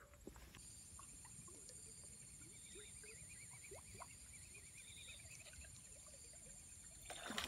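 Near silence: faint outdoor ambience with a thin, high, steady buzz and a faint rapid chirping, like insects.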